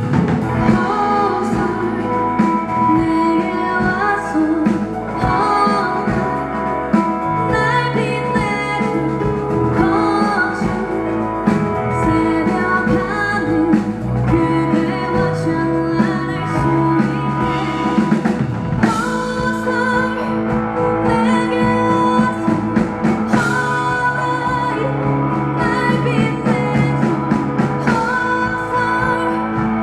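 A rock band playing live, with a singer over electric guitar, bass, drum kit and keyboard.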